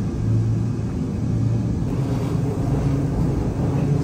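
Subway train running, heard from inside the carriage: a steady low rumble with a hum.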